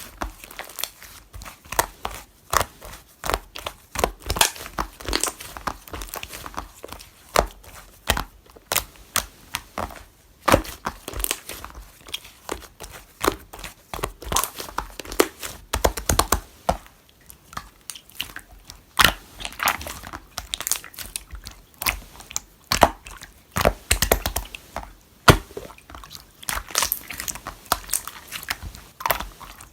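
Slime being squished, pressed and stretched by hand, giving an irregular run of sharp crackling clicks and pops, with a few heavier squelches.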